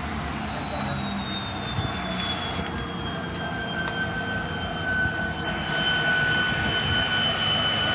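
Diesel freight locomotive engine running while it stands without moving, with a high whine that slowly falls in pitch; a second, lower whine joins about three seconds in, and the engine gets a little louder after about five seconds.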